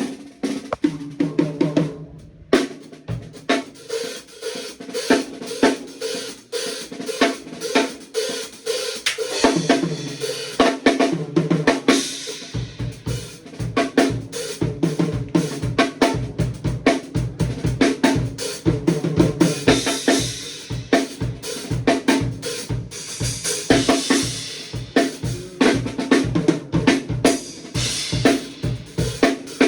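Drum kit played with Omete cymbals: busy fills on pitched drums at first, then, from about twelve seconds in, a steady beat on bass drum and snare under washing cymbals and hi-hat.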